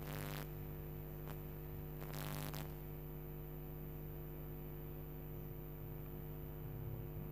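Steady low electrical hum in the recording, with a couple of brief soft hissy noises near the start and about two seconds in.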